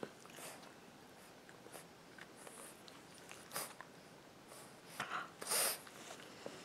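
English bulldog puppy snuffling, with a few small sniffs and then a short, louder sneeze near the end.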